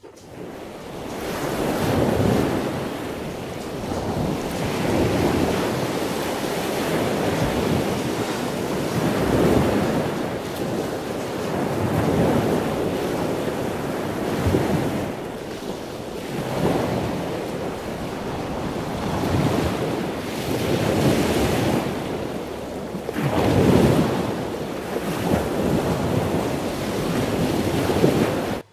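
Sea surf: a continuous rush of waves that swells and falls back every few seconds.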